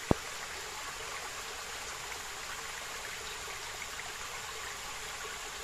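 Shallow forest stream trickling steadily over rocks. A single sharp click sounds right at the start.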